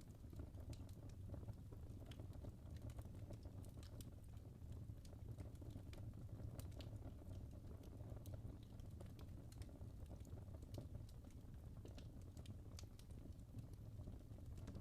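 Log fire in a fireplace crackling softly: many small, sharp pops and ticks at irregular intervals over a low, steady rumble of the burning.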